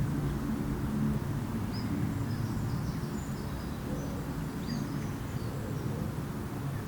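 Outdoor lakeside ambience: a steady low rumble, with faint high bird chirps scattered through the middle of it.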